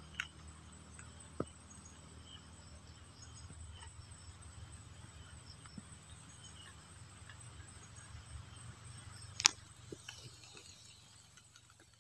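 Faint night-time outdoor ambience with insects chirping, broken by a few sharp clicks, the loudest about nine and a half seconds in.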